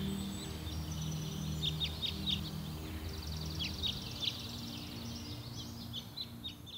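Soft background music of low sustained notes, with small birds chirping over it: short downward-sweeping calls and, in the middle, a rapid trill. Everything fades down near the end.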